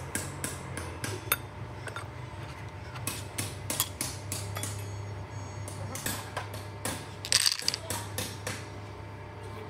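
Steel roller sleeves clinking against metal as they are set into the pin holes of a cycloidal pinwheel reducer: a run of sharp clicks and knocks, busiest about six to seven seconds in, over a steady low hum.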